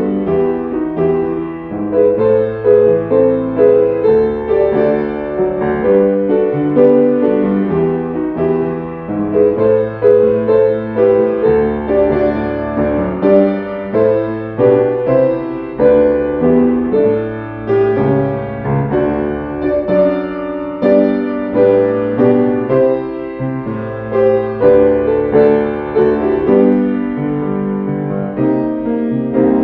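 Solo piano music: chords over a slow-moving bass line.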